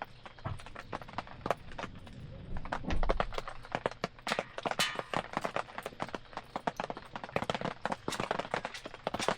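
Wood campfire crackling, with many irregular sharp pops and snaps. A brief low rumble about three seconds in is the loudest moment.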